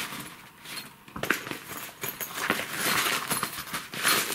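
Fabric of a fishing bag rustling and brushing as a hand opens a pocket flap and rubs over the bag, with a sharp click about a second in.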